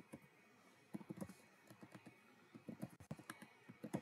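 Faint typing on a computer keyboard: a quick run of keystrokes about a second in, and another from about three seconds in.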